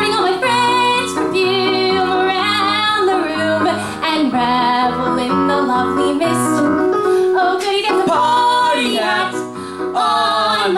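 A woman singing a show-tune melody, with wavering held notes, over piano accompaniment on a Yamaha keyboard.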